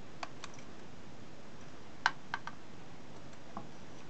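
A few light, sharp clicks, the loudest about halfway through, as a desoldered power transistor is fitted into the test socket of a handheld transistor tester.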